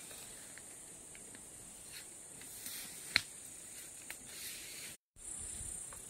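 Steady high-pitched chirring of insects in the grass, with faint rustles and one sharp click about three seconds in; the sound cuts out for a moment near the end.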